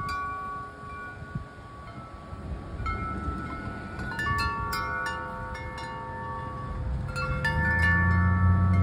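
Wind chimes ringing in the wind, their notes overlapping and coming thicker from about four seconds in. A low rumble swells near the end.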